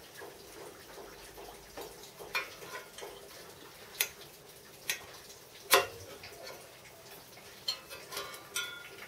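Scattered metallic clinks and taps of a hand tool working against a sheet-aluminium bracket, about seven separate knocks with the loudest a little past halfway, and a few with a brief metallic ring near the end.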